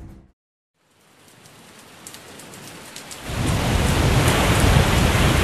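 After a moment of silence, steady rain fades in. About three seconds in it turns heavy, with a low rumble of thunder underneath.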